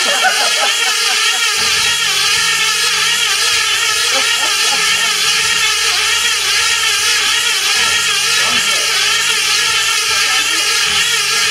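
Cox Tee Dee .020 glow engine on a model racing plane running flat out, a high, steady whine whose pitch wavers regularly up and down as the plane circles the pylon.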